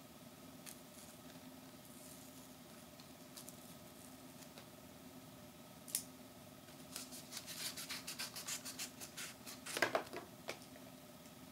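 Small paper and plastic packaging being opened and crinkled by hand: a sharp click about six seconds in, then a run of quick crackles that grows loudest near the end, over a faint steady hum.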